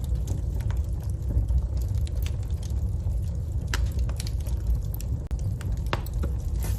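Wood fire burning in a fireplace: a steady low rumble of flames with scattered crackles and pops, the sharpest about four seconds in and again near six.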